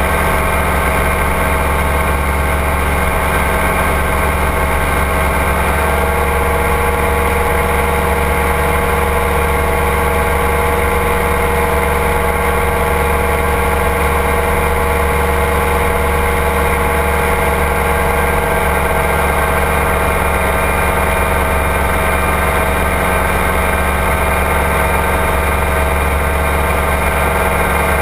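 Ultralight trike's engine and propeller running steadily in level flight, a constant drone with a slight change in its note about six seconds in.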